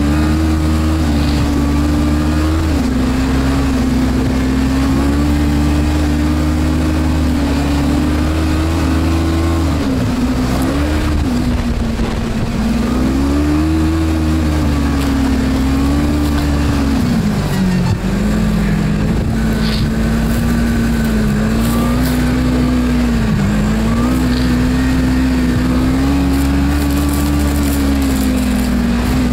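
Snowmobile engine running under way, its pitch rising and falling again and again with the throttle and sagging lowest about two-thirds of the way through.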